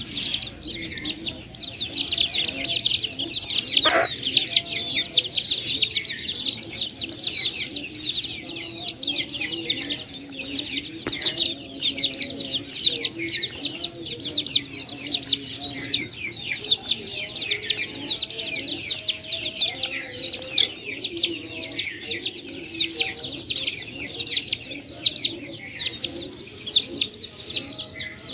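A brood of chicks peeping continuously in short, high, falling cheeps, with a hen clucking low underneath.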